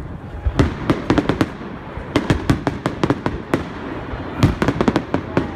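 Fireworks bursting overhead: rapid, sharp cracks and bangs in three quick clusters.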